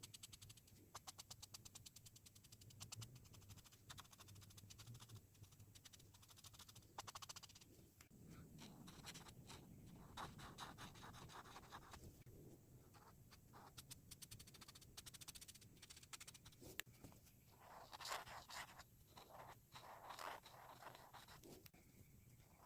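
Faint scratching of a coloring tool on paper, in quick repeated strokes with a few longer rubbing passes.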